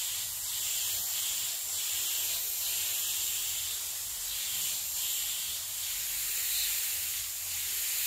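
SATA Mini Jet spray gun hissing as it sprays paint at very low air pressure, narrowed from a fan to a point and blown straight across the panel. The hiss is steady and swells and fades a little as the gun moves.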